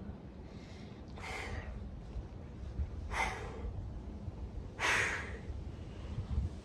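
A man breathing hard through exertion, three forceful exhales about two seconds apart, as he strains through slow triceps reps against a resistance band.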